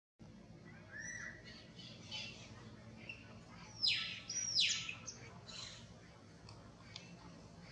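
Birds calling: scattered short chirps, with two loud whistled calls about four seconds in that sweep sharply down in pitch.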